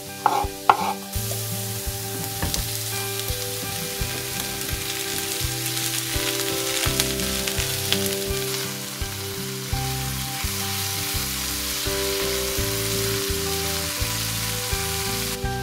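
A knife cuts through mushrooms on a wooden cutting board a couple of times in the first second. Then sliced onions and button mushrooms sizzle steadily in oil in a frying pan while a silicone spatula stirs them.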